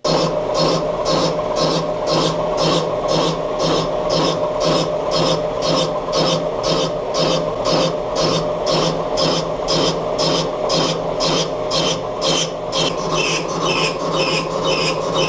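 Metal lathe running, a steady gear hum under the cutting tool scraping the spinning workpiece in a sharp, regular rasp about three times a second.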